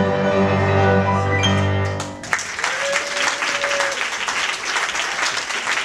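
Children's string ensemble of violins and cellos holding a final chord that ends about two seconds in, then applause.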